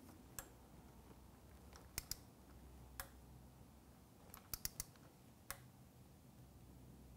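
Faint, scattered clicks of a ratcheting torque wrench working the lower crash bar bolt: single clicks, then a quick cluster of four about four and a half seconds in, over near silence.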